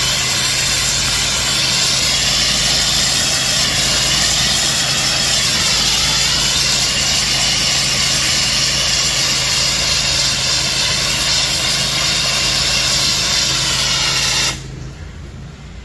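Pressure washer running, a steady hum under the loud hiss of its water jet spraying onto a synthetic turf putting surface. The spray cuts off suddenly near the end.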